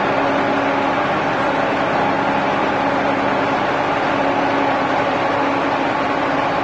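Truck-mounted mobile crane's engine and hydraulics running steadily under load while holding a bridge crane girder, a constant mechanical drone with several steady tones.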